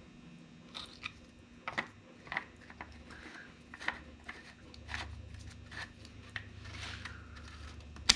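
Scattered light clicks and taps of a plastic oil jug and cap being handled just after engine oil has been poured in, with a faint low rumble in the second half.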